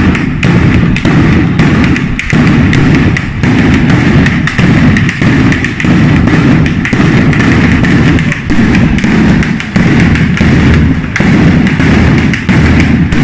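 A batteria, a long string of firecrackers laid along the street, going off in a rapid, continuous volley of loud bangs, with a few brief lulls.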